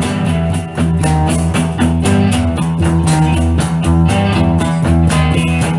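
Instrumental break in a rock song with no singing: guitar and bass playing over a steady beat.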